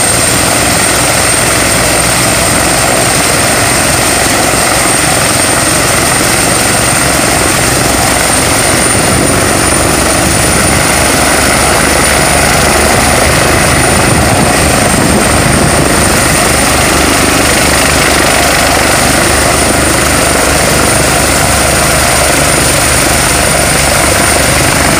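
Eurocopter EC145 helicopter running on the ground before takeoff, with a loud, steady blend of rotor noise and a high, thin turbine whine from its twin turboshaft engines. The whine's pitch creeps up slightly about ten seconds in.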